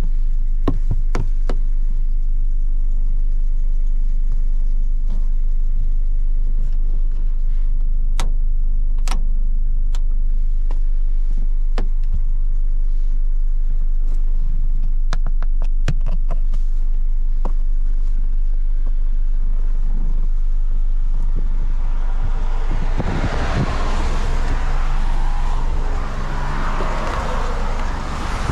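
Honda HR-V's 1.6-litre D16A four-cylinder running at a steady note through its CVT while driving, under a heavy, steady low rumble, with a few sharp clicks scattered through. About three quarters of the way in, a broad rushing noise swells up and stays to the end.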